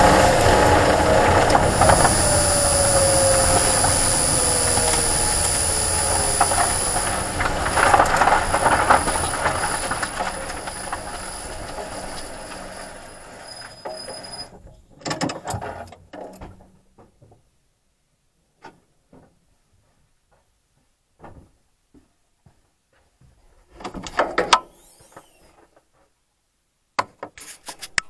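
Renault ZOE R240 electric car coasting and slowing: road and drivetrain noise fades steadily, with a falling whine and a rattling that the owner traces to the reduction gear when the motor is neither pulling nor braking. About halfway through the driving noise dies away, leaving only a few short bursts of rattling and knocking.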